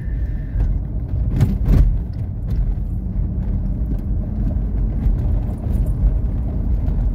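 Steady low rumble of tyres and engine heard inside a moving car's cabin. There is a pair of short knocks about a second and a half in.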